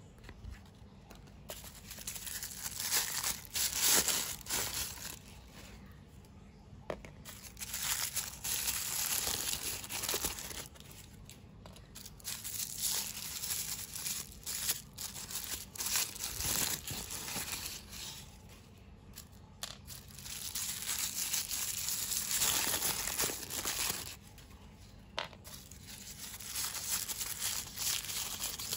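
Crinkly plastic toy wrapping being torn open and crumpled by hand, in bouts of a few seconds with short pauses between them.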